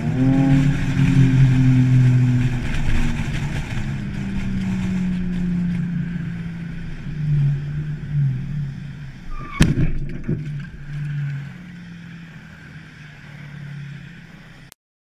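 Car engine and road noise heard from inside the car, the engine note rising at the start and then holding steady with small shifts. About ten seconds in comes a single sharp bang, the collision with the car ahead.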